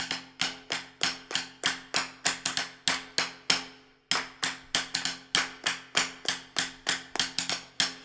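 Instrumental opening of a live band song: a rhythmic pattern of sharp, woody struck percussion hits, about three a second, each ringing briefly, over a steady low held note. There is a short break in the pattern about four seconds in.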